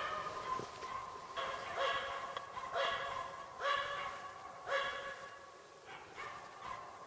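Finnish spitz barking steadily, about one bark a second, growing fainter in the last couple of seconds. This is the tree-barking of a bird dog holding game treed so the hunter can close in.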